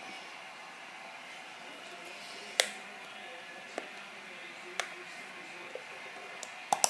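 A few sharp plastic clicks about a second apart as the lid of a Play-Doh tub is pried at, with a louder quick double click near the end as it comes open.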